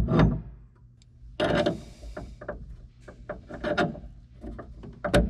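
Metal hardware of a boat's brass steering fitting being worked by hand. Sharp knocks at the start and again near the end, a short scrape about one and a half seconds in, and light clicks and taps in between as the bolt and linkage are fitted.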